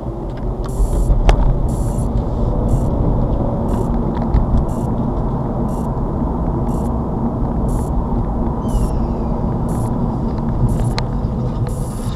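Road and engine noise inside a moving car, as picked up by its dashcam: a steady low rumble that builds over the first second or two as the car pulls away and speeds up to about 30 mph, then holds.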